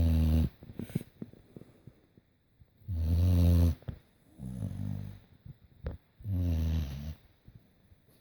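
Pit bull snoring in its sleep: very loud, pitched snores about every three seconds, with a softer breath snore in between.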